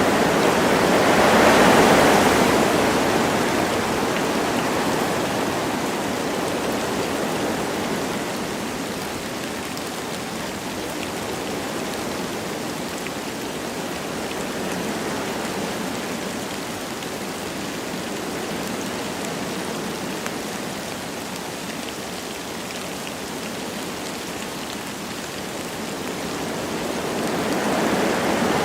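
Wind blowing through forest trees with light rain, a steady rushing noise. It swells in a gust at the start, eases off, and builds again near the end.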